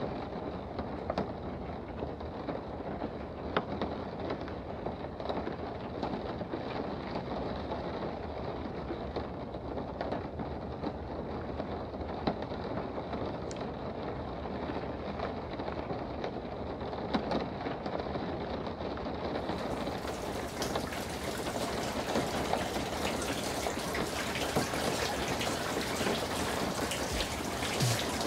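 Steady rain falling on a sailboat's deck, with rainwater running off the deck into the open fresh-water tank filler. About two-thirds of the way through, the hiss turns brighter.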